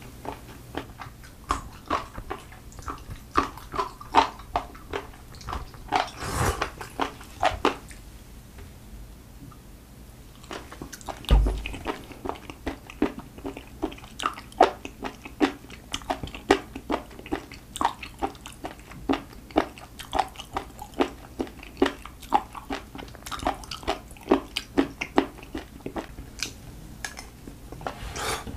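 Close-up chewing of raw penis fish (fat innkeeper worm): a dense run of wet mouth clicks and smacks as the rubbery flesh is bitten and chewed. The chewing pauses briefly about a third of the way through, and a single dull bump comes just after.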